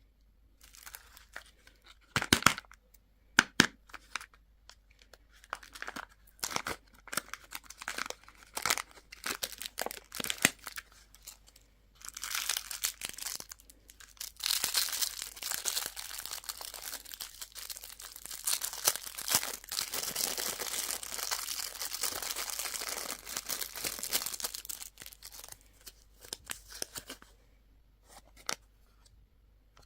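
Candy wrappers and packaging being handled and torn open: sharp snaps and clicks in the first twelve seconds, then a long stretch of continuous tearing and crinkling that stops a few seconds before the end.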